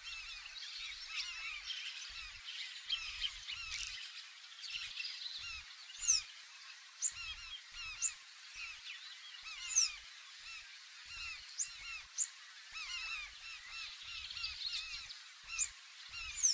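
A flock of large-billed terns calling continuously, many harsh overlapping cries. Sharper, louder calls stand out about eight times, mostly in the second half.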